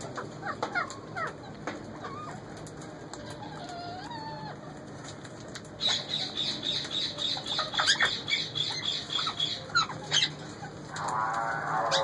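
Indian ringneck parakeets calling: short gliding chirps and whistles, then a fast, high chattering trill from about six seconds in until nearly ten seconds, with scattered clicks. A denser burst of calls starts near the end.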